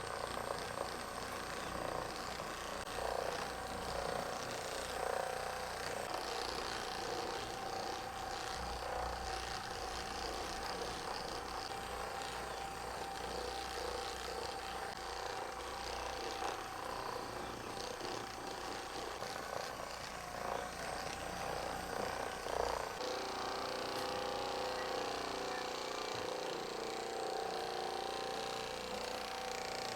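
Steady buzzing hum of a small electric motor, changing in pitch and tone about 23 seconds in.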